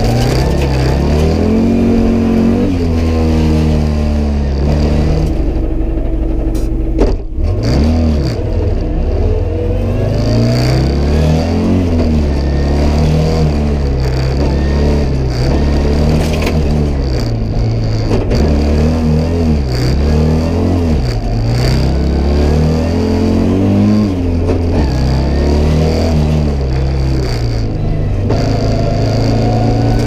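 Audi Quattro S1's turbocharged five-cylinder engine, heard from inside the cabin, revving up and falling back repeatedly as it is driven hard through the gears, with a short sharp break in the sound about seven seconds in.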